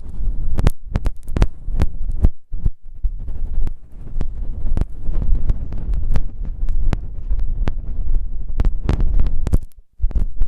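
Close-up ASMR ear sounds: something is rubbing and pressing on a microphone's ear. It gives a deep, muffled rumbling broken by irregular crackles and clicks, with a short lull about two and a half seconds in and another near the end.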